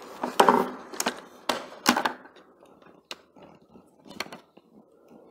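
An opened electric hand mixer's plastic housing clicking and knocking as it is handled, with a screwdriver working on the screws that hold its power cord. There are several sharp knocks in the first two seconds, then fainter scattered ticks.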